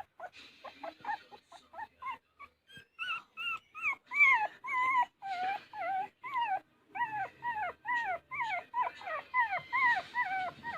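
A puppy whimpering and whining in a long string of short, high, arching cries, several a second, with a brief pause a few seconds in.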